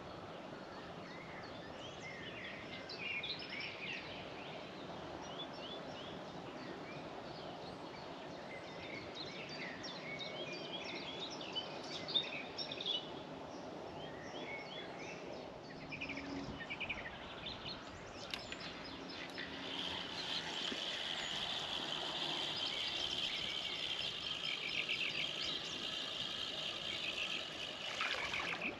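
Songbirds chirping and singing over steady outdoor background noise, with short scattered calls in the first half. About two-thirds of the way in, a dense, fast, high twittering song takes over.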